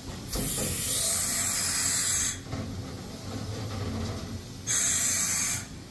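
Kitamura HX250G CNC horizontal mill, its spindle at 8,000 rpm, giving two loud bursts of spraying hiss over a low machine hum: the first about two seconds long, the second about a second long near the end.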